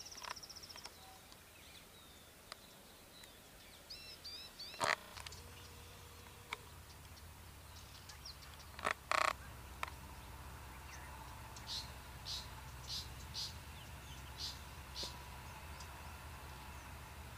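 Wild birds calling: a quick high trill, a few short curved chirps, two loud harsh calls, then a run of about six short high notes.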